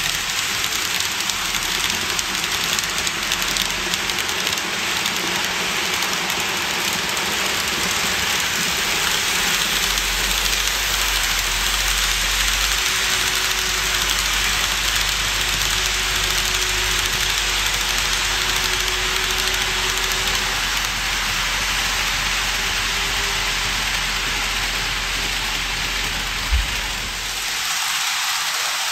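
N-gauge model trains running on the layout track, among them a KATO E235 series 1000 15-car set: a steady rushing hiss of small wheels on rail with a low hum underneath. A single sharp click comes shortly before the end, and the low hum drops away after it.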